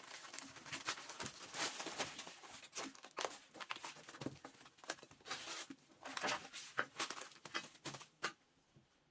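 Packaging being torn and crinkled by hand: an irregular run of rustling, crackling and tearing that stops near the end.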